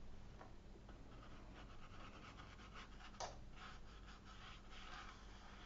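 Faint strokes of a watercolour brush on paper, with one sharp tap about three seconds in.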